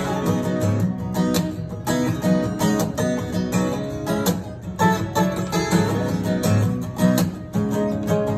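Acoustic guitar strummed in a steady rhythm, chords ringing with no voice over them.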